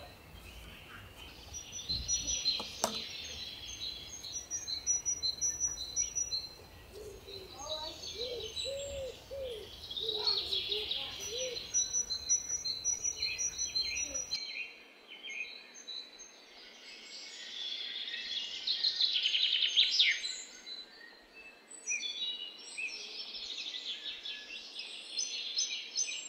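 Several small songbirds singing and chirping, with quick repeated high notes and trills throughout. A low background rumble cuts off abruptly about halfway through.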